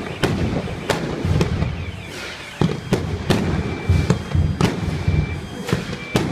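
Fireworks going off in an irregular series of sharp bangs, one or two a second, over a continuous low rumble of further blasts.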